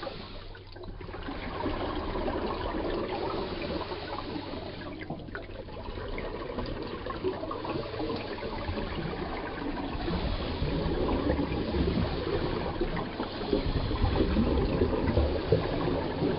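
Underwater bubbling and gurgling from a scuba diver's exhaled breath, an irregular crackle that dips briefly about a second in and again about five seconds in.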